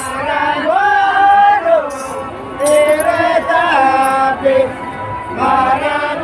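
Group of voices singing a Santali traditional dahar song together in held, gliding phrases, with short breaths between phrases.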